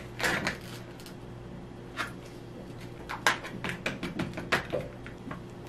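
Cardboard pancake-mix box being torn open at the top and its inner bag pulled apart: a series of sharp crackles and rips, densest between about three and five seconds in.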